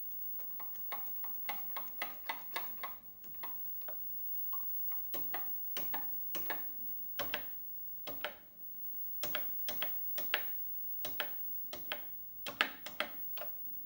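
Keys on a Commodore PET 3032 keyboard being pressed, sharp irregular clacks, some singly and some in quick runs of three or four.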